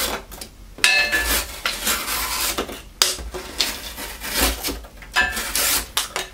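A freshly sharpened folding knife slicing through cardboard in several quick rasping strokes. The edge cuts with ease.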